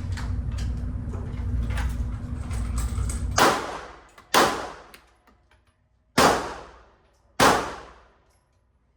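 A steady low rumble that cuts off, then four loud gunshots about one to two seconds apart, each trailing off over about a second.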